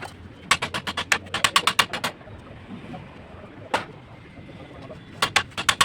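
Rapid sharp knocks, about nine a second, in two runs of a second or so each, with a single knock between them. This fits a hammer tapping column formwork.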